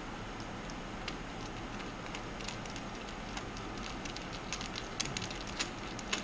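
Light metallic clicks and taps as a banjo fitting is turned by hand onto an aluminium fuel filter, over a steady background hiss. The clicks come closer together about five seconds in.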